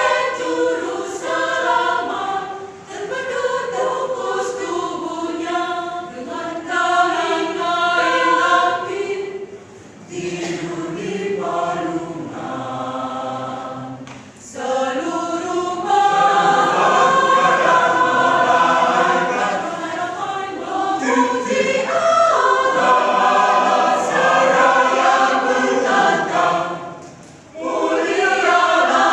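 Catholic parish choir of women's and men's voices singing in harmony, phrase by phrase with short breaks between. There is a softer passage about a third of the way in, then the full choir comes back louder.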